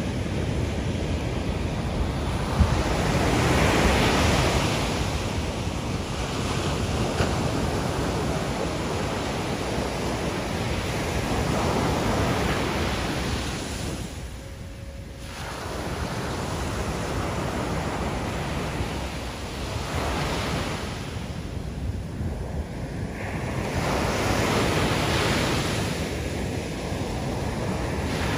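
Ocean surf breaking and washing up a sandy beach, the wash swelling and fading every several seconds, with wind rumbling on the microphone.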